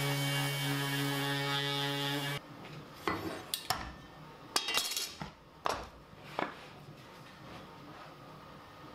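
Random orbital sander running with a steady hum, sanding pencil markings off plywood, then switched off about two and a half seconds in. After it, a few light knocks and clatters as a ruler is laid across the boards and they are marked again.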